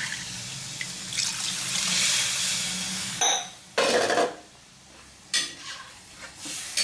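Water pouring as a steel tumbler is filled and emptied into a pan of fried chicken, followed a little after three seconds by clinks and knocks of the steel tumbler and vessels.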